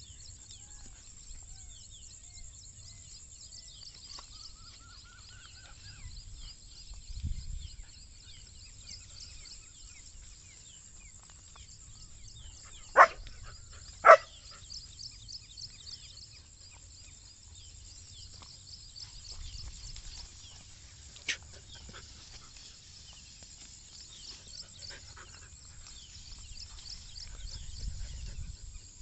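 A puppy barks twice, short and sharp, about a second apart near the middle, and gives one fainter bark later.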